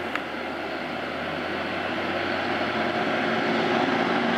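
Farm tractor's diesel engine approaching along a road, a steady drone growing gradually louder, with a brief click just after the start.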